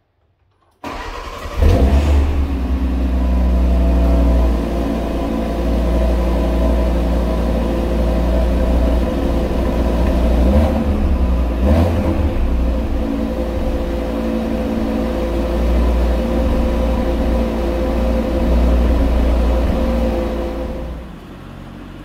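Cupra Formentor VZ5's 2.5-litre turbocharged five-cylinder engine cold-starting on the stock exhaust. It cranks briefly about a second in, catches with a loud flare, then settles into a steady idle inside an underground garage.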